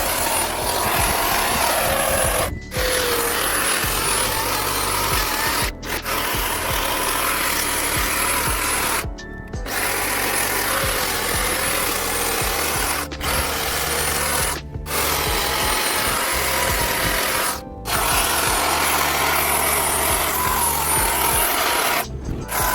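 Chainsaw running under load, carving into wood, with several very brief breaks in the sound.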